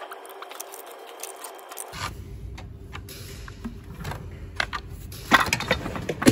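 Metal-on-metal clinks and knocks of hand tools working on a dual-mass flywheel as it is loosened and pried off the crankshaft. The loudest knocks come about five seconds in and at the very end.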